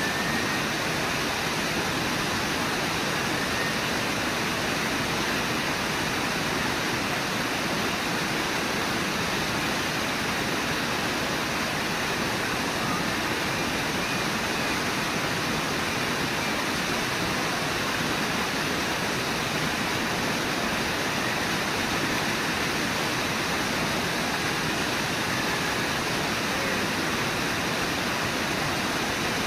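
Rushing white water of the Brooks River, a steady, even rush with no breaks.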